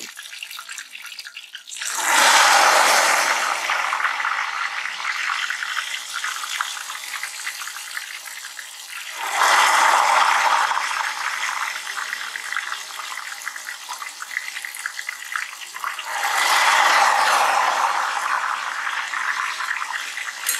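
Thin ghevar batter poured a spoonful at a time into hot refined oil in a steel pot. Each spoonful sets off a sudden loud surge of sizzling that eases into steady bubbling frying. Three surges come about seven seconds apart.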